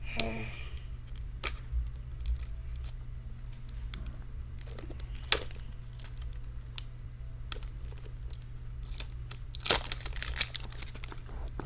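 Plastic wrap being peeled and crinkled off a small toy capsule, with scattered sharp clicks and crackles, strongest about five seconds in and again near ten seconds. A steady low hum runs underneath.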